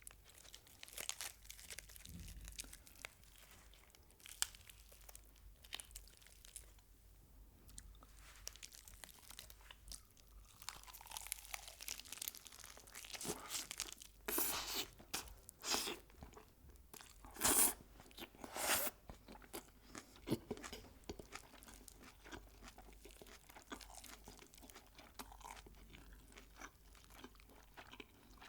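Close-miked crunching and chewing of crispy fried chicken: repeated bites with crackling crust, loudest in a cluster of crunches around the middle.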